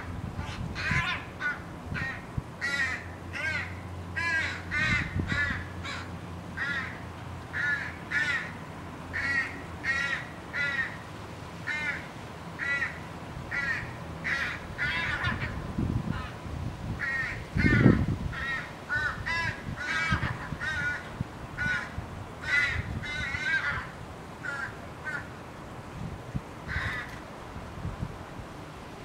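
Young crow begging to be fed: short dog-like calls repeated about one to two a second without a break. A brief dull low thump about two-thirds of the way through is the loudest single sound.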